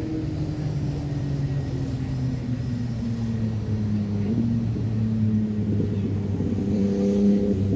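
An engine running steadily, its pitch sliding slowly lower over the first few seconds and rising a little near the end.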